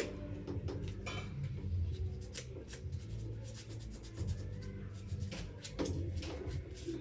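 Scattered clicks, taps and rubbing of parts and tools being handled during washing-machine repair work, over a steady low hum.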